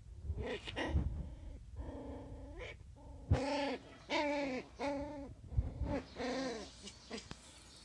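Border collie puppies play-fighting, with a run of about five short whining yelps, each rising and then falling in pitch, and a few low thumps.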